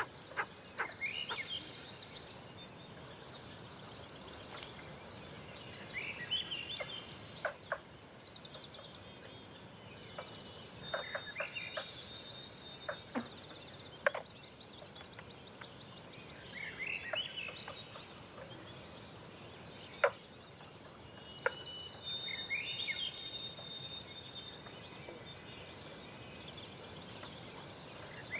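A songbird singing the same short phrase over and over, about once every five seconds: quick rising notes followed by a fast, high buzzy trill. Scattered sharp clicks and a steady low hiss lie underneath.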